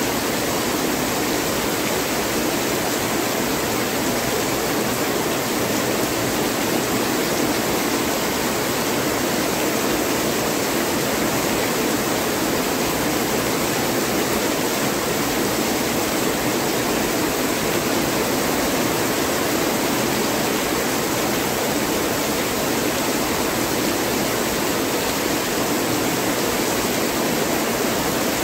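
Heavy rain falling steadily, an even, unbroken hiss of dense drops.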